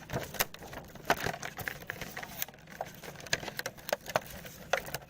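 Packaging being handled and torn open by hand: irregular crackles, taps and short scrapes.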